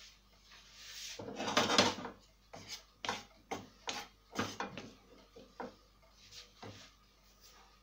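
Wooden spatula stirring green beans in a non-stick frying pan: a louder scraping rush about a second in, then a run of sharp knocks and scrapes, roughly two a second, as the spatula strikes the pan.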